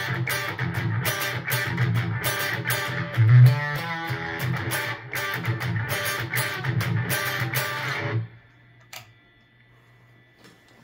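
Electric guitar played through a NativeAudio Fry Bread fuzz pedal, stacked with a JHS PackRat distortion pedal and a Universal Audio Dream '65 amp pedal. Fuzzed chords are picked in a quick, even rhythm of roughly two to three strikes a second, with one louder low note about three seconds in. The playing stops abruptly about eight seconds in, followed by a single click.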